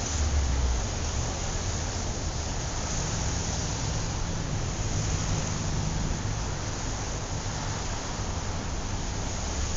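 Steady rush of passing road traffic mixed with wind on the microphone.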